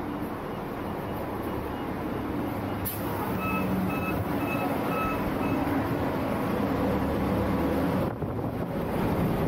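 Interior noise of a moving public bus: a steady engine and road rumble that grows louder as the bus gets under way. A few seconds in there is a click, then a run of five short electronic beeps, about two a second.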